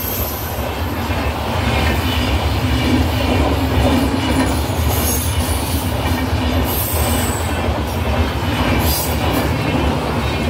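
Passenger train coaches rolling past at close range, a steady rumble of wheels on the rails with clickety-clack over the joints and brief high-pitched wheel squeals now and then.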